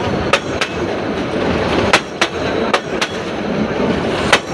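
Passenger train rolling past, its wheels clacking over the rail joints: sharp clicks every half second to second over a steady rumble.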